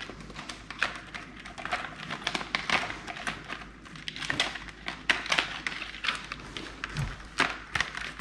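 Scissors snipping through a stiff plastic clamshell package, with irregular crackling and clicking as the plastic is cut and pried apart.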